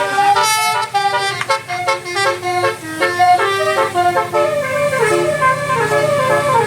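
Bus telolet horn of the basuri kind playing a melody in quick stepped notes. A bus engine hums steadily under it in the last couple of seconds.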